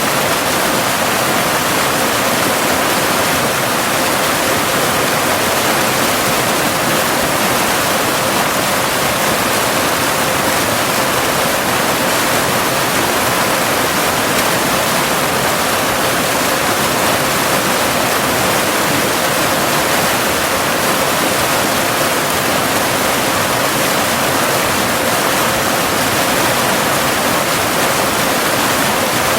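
Steady rush of a cascading waterfall, an even wash of water noise with no breaks. A faint steady tone at about 528 Hz runs underneath: the binaural delta-wave tone laid over the water.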